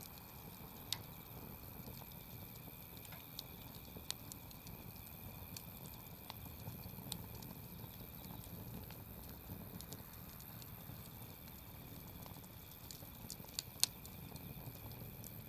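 Wood campfire crackling: scattered sharp pops and snaps over a low, steady rush of flame, with the loudest pop near the end.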